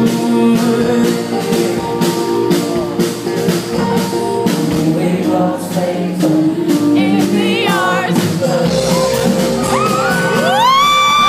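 Live band music played loud in a large hall, with a steady rhythm and singing. Near the end a voice slides up into a long, high held note.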